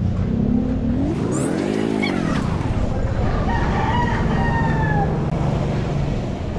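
Motor vehicle engine revving up and back down about a second in, then running steadily. A high, slightly falling held tone sounds over it for a second or so in the middle.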